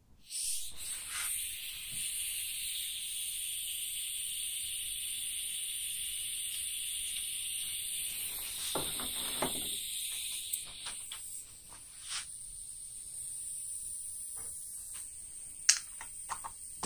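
Compressed air hissing steadily through a Central Pneumatic mini detail spray gun. After about ten seconds the hiss drops a little, and a few sharp clicks and knocks of the gun being handled come through.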